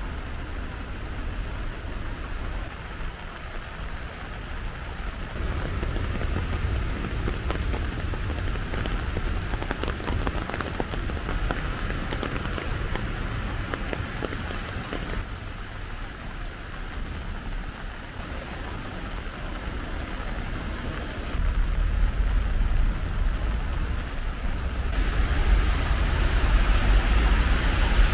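Steady rain falling on paving and stone, with a low rumble underneath; the sound changes abruptly a few times.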